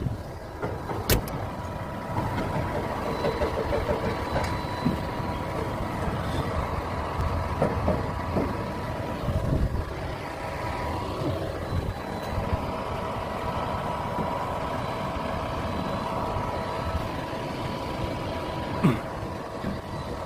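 Crane machinery running: a steady mechanical hum with a constant high whine, a sharp click about a second in and a knock near the end.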